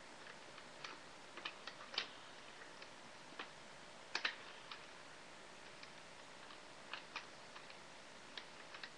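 Light, irregular clicks and taps of plastic highlighters being handled and set in place in a pencil case, with the sharpest knocks about two seconds in and a pair just after four seconds.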